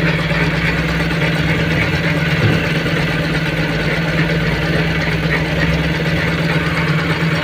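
An engine or motor running steadily, a constant low hum that does not change.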